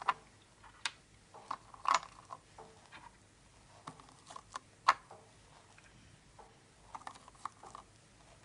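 Wooden Scrabble tiles being set down one at a time on the board: a string of separate sharp clicks, bunched around two seconds in and again near the end, the loudest about five seconds in.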